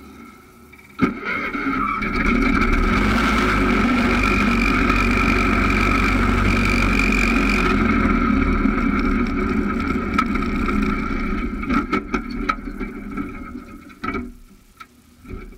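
John Deere 314 garden tractor engine opening up to full throttle and running hard under load, with a steady high whine. It then dies away over several seconds. There is a sharp click about a second in and a few knocks near the end.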